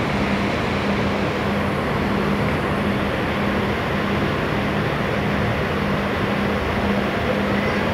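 Large bus diesel engine idling, a steady low hum under a wash of engine noise.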